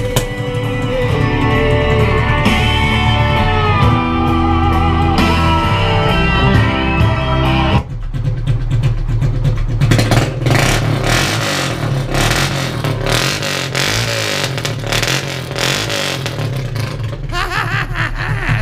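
Guitar-backed song playing loud through an 8-inch Boss Audio tube speaker on the quad, with the Honda TRX300's engine running. About eight seconds in the clear musical tones stop, and a noisier, rattly engine sound makes up the rest.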